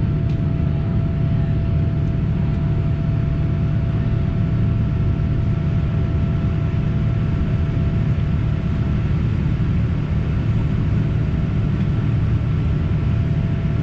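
Boeing 787-9 Dreamliner cabin noise: a steady low drone of jet engines and airflow, with a faint steady whine above it.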